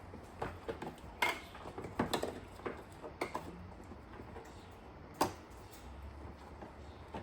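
Scattered light clicks and knocks from hand work on car parts, with a few sharper taps about a second, two seconds and five seconds in.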